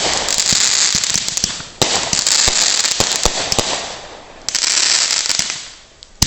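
Backyard consumer fireworks going off: three waves of hissing crackle, thick with sharp pops, each lasting about two seconds and fading out near the end, then one sharp bang just at the close.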